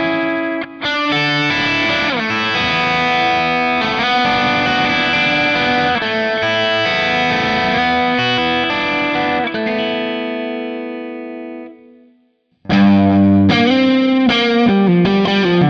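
Electric guitar played through an amp profile modelled on a Bad Cat Hot Cat 40 (KT88 power valves), chords and single notes ringing on and then dying away to silence about twelve seconds in. Just after, a black hollow-body electric guitar starts a louder riff through a different Hot Cat 40 profile.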